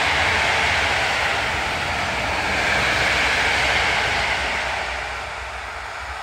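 PKP Intercity passenger train hauled by an EP09 electric locomotive running past, its coaches rolling along the rails in a steady rushing noise. The sound fades about five seconds in as the train moves away.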